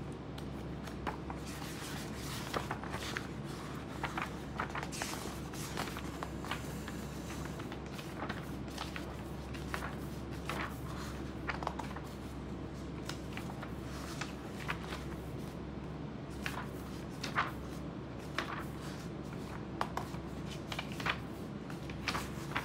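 Pages of a thick book being turned and handled: a string of short, irregular paper rustles and soft taps over a steady low hum.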